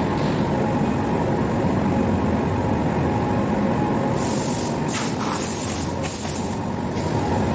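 Steady machinery drone with a held tone. From about four seconds in, several short hissing blasts cut in and stop again before the end.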